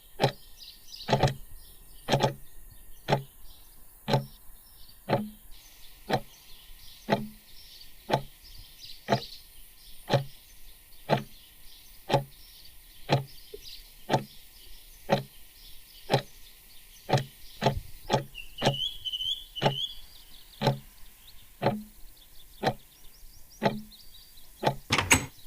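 Steady, even clicking knocks, about two a second, each with a low thud. A short wavering high tone sounds about three-quarters of the way through, and a quick burst of louder clicks comes at the end.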